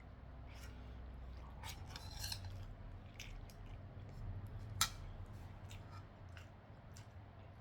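Cutlery clicking now and then against a plate while eating, the sharpest click a little under five seconds in, over a low steady hum.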